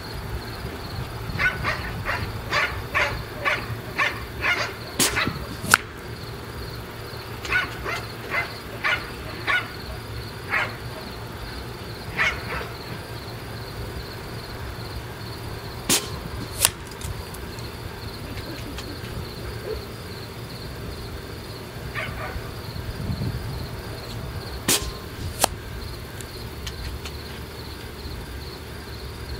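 Three shots from a .25 calibre Benjamin Marauder air rifle. Each is a sharp crack followed about 0.7 s later by a second crack as the pellet strikes the laptop target 105 yards off. A dog barks in quick runs during the first ten seconds, over a steady insect drone.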